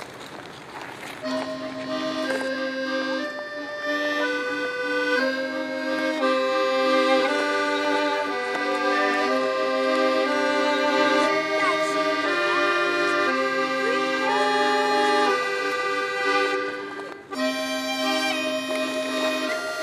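Instrumental background music: a melody of held notes over a steady accompaniment, with a brief break about seventeen seconds in.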